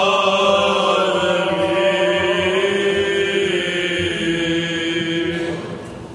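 Byzantine chant: chanters' voices drawing out a long, slow melismatic line over a steady low drone (the ison), the singing fading near the end.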